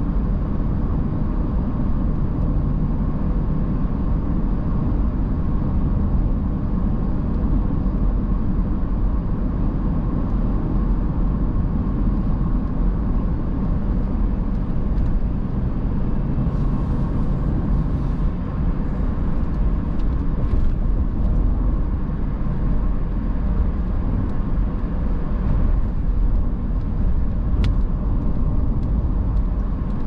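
Car driving, heard from inside the cabin: a steady low rumble of road and engine noise with a faint steady hum, and a single sharp click near the end.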